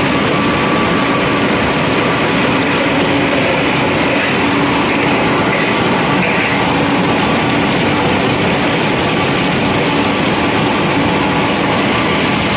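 Pellet mill machinery running in a factory hall: a loud, steady mechanical din with a few constant hum tones and no change throughout.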